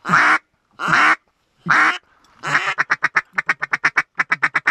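Hunting duck call blown to bring in ducks: a few long, drawn-out quacks, then a fast run of short quacks at about six a second, in two bursts.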